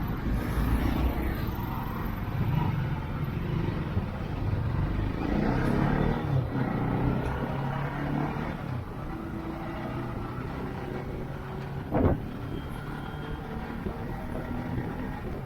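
Motorcycle riding through busy road traffic: its engine running amid the rumble of surrounding vehicles, with one brief loud sharp sound about twelve seconds in.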